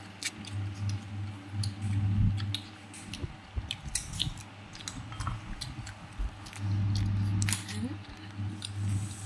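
Crunchy biting and chewing of slices of firm, unripe mango, with many short, sharp crunching clicks. A low hum comes and goes.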